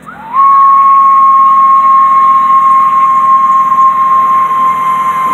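Locomotive whistle on the Percy replica engine, blowing one long steady note that slides up into pitch about a third of a second in.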